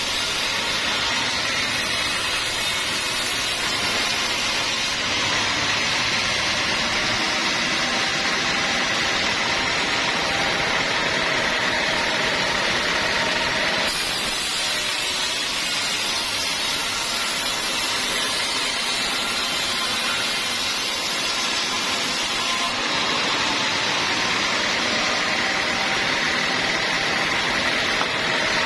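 Sawmill circular-saw machinery running steadily, a constant mechanical drone with a faint high-pitched whine.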